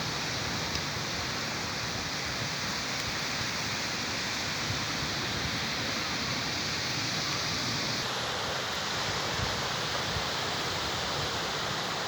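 Steady rush of sea surf breaking on the shore, an even wash of noise with no distinct single waves.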